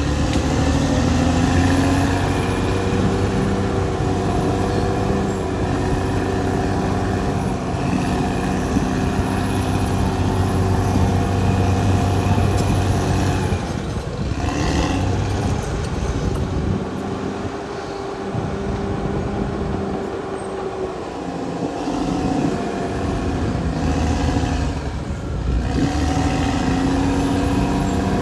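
Caterpillar D6R XL bulldozer's diesel engine running steadily under load, easing off for a few seconds around the middle and pulling hard again near the end.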